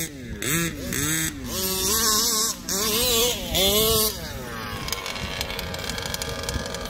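Small two-stroke petrol RC car engines revving up and down repeatedly with throttle blips, then settling into a steadier running sound about four seconds in.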